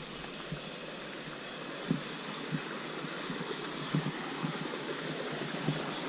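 Steady rush of a river flowing close by, with an insect's high, thin trill switching on and off over it and a few soft footsteps on a dirt path.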